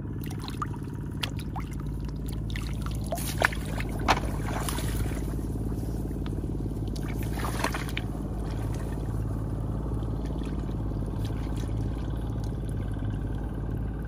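Shallow rice-paddy water splashing and trickling as hands grope for snails and legs wade through the stubble, with scattered sharp splashes in the first half. A steady low engine-like drone runs underneath.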